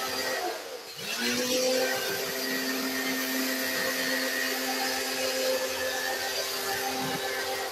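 Pressure washer running with a steady motor hum and the hiss of its water spray. It cuts out briefly just before a second in and starts up again.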